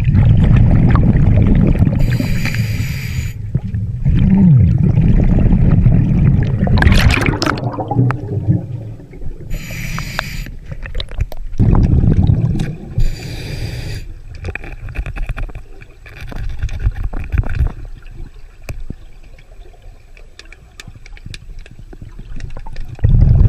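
Scuba diver breathing through a regulator underwater: a few short hissing inhalations, each followed by a long burst of rumbling exhaled bubbles. The breathing grows quieter in the second half.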